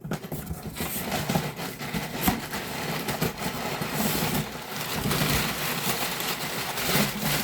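Paper packing material being pulled out of a cardboard shipping box and crumpled: a continuous crackling rustle with many small crinkles and clicks.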